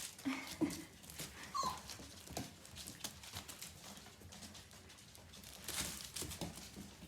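Young German shepherd–husky mix puppies whimpering, with a few short squeaks in the first two and a half seconds. Scattered light clicks and scratches run under them and grow busier near the end.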